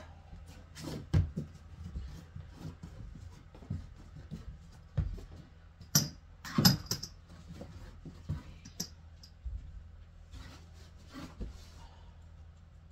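Scattered knocks and clatters of wood and tools being handled, the sharpest a few about six to seven seconds in, over a low steady hum.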